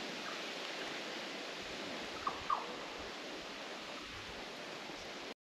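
Steady outdoor background hiss beside a creek pool, with two short falling chirps about two and a half seconds in; the sound cuts off suddenly near the end.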